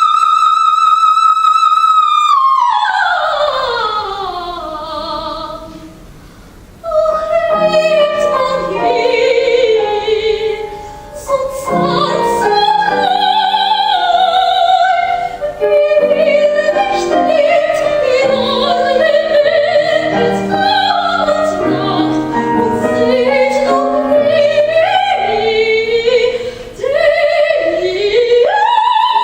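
Soprano singing an opera aria with accompaniment: a high note held for about two seconds, then a long falling line, and after a brief dip a busier passage of quickly moving notes.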